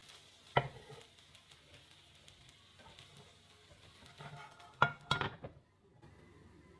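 Frying pan knocking against a ceramic plate as a pancake is slid out onto it. There is one sharp clack about half a second in, a soft scrape, then two louder knocks in quick succession near the end, over a faint hiss.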